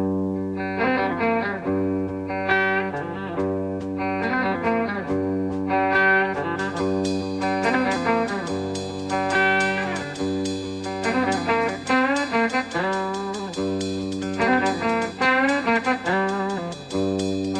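Instrumental opening of a blues-tinged psychedelic rock track: an electric guitar plays sustained lead lines with bent notes over a steady bass, with cymbals joining about halfway through. It starts suddenly out of silence.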